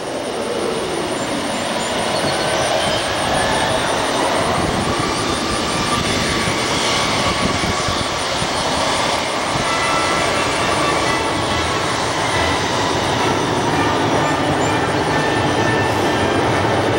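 McDonnell Douglas MD-80 airliner's rear-mounted jet engines at landing and rollout: a loud, steady jet rush that builds over the first few seconds and then holds, with faint whining tones gliding through it.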